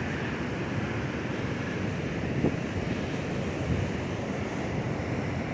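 Pacific surf washing steadily onto the beach at high tide, with wind buffeting the microphone.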